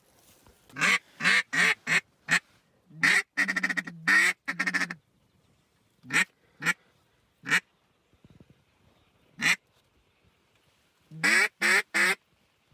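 Duck call blown in quacking sequences: a string of about five descending quacks, a fast rolling chatter, a few single quacks, then three quick quacks near the end, calling to incoming ducks.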